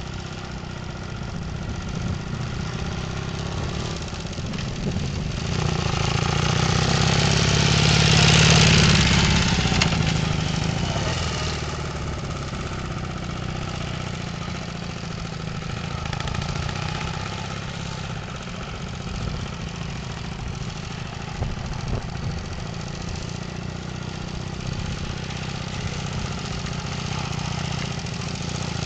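Motorcycle engine running at low speed, swelling to its loudest about eight or nine seconds in, then settling back to a steady hum.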